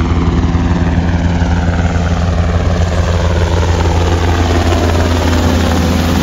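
Water-drop helicopter flying low overhead: a loud, steady rotor and engine drone with a deep hum, a faint whine slowly falling in pitch through it.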